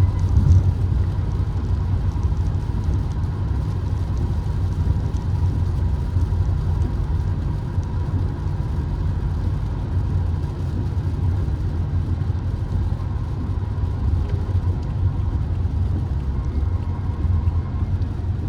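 Steady low road and engine rumble heard from inside a Peugeot 3008 being driven at an even pace, with a faint steady tone in the background.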